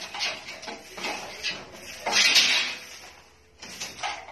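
Long-handled broom sweeping dust and rubble across a rough concrete floor in repeated uneven swishes, the loudest stroke about two seconds in, with scraps of wood and debris scraping and clattering as they are gathered.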